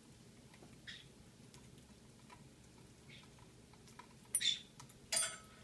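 An African grey parrot climbing about a rope perch on its play stand. Faint ticking runs under it, and two short, sharp sounds come about four and five seconds in.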